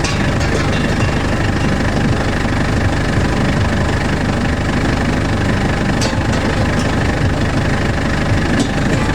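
An engine running steadily at a constant speed, with a rapid, even knocking beat.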